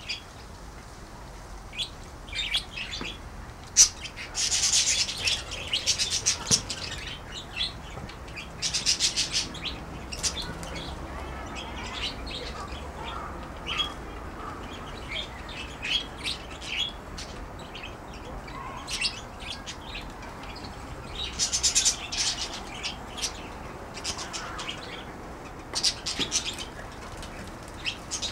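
A flock of budgerigars chattering, with rapid high chirps coming in bursts and short quieter gaps between them.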